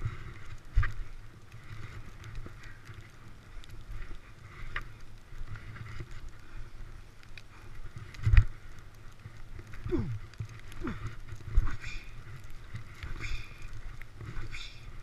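Skis scraping and hissing over snow, with wind rumbling on the microphone and a few sharp thumps, the loudest about eight seconds in.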